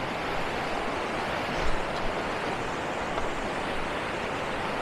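Balason river rushing steadily over rocks and through rapids, a constant hiss of white water.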